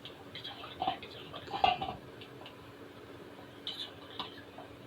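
Hands kneading soft flour dough in a bowl: scattered light sticky pats and small clicks, with two sharper knocks about one and nearly two seconds in.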